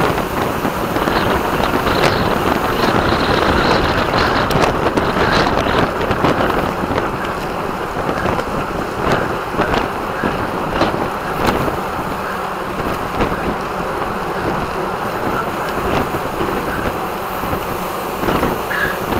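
Wind rushing over the microphone of a camera riding along in a road bike race: a loud, steady rush with scattered ticks and clicks through it.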